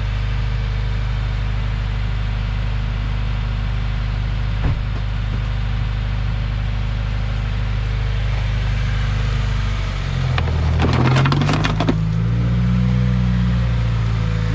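2015 Subaru WRX's turbocharged flat-four engine idling steadily, with a single sharp click a little under five seconds in. About ten seconds in the engine note rises and shifts as the car is moved, with a second or two of crackling, scraping noise.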